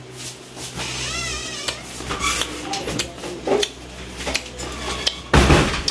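Raw mango slice being bitten and chewed with crunching, among light clinks of dishes and utensils, with a louder clatter near the end.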